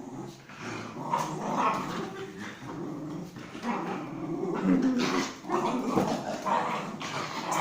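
Pomeranian growling in play, a rough, uneven growl that rises and falls without a break.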